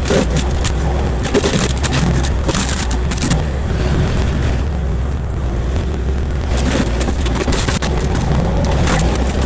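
Kubota KX040-4 mini excavator's diesel engine and hydraulic forestry mulcher running with a steady low drone. For the first three seconds or so, and again for the last three, the mulcher's spinning teeth shred brush with a dense crackling and chattering; in between there is only the drone.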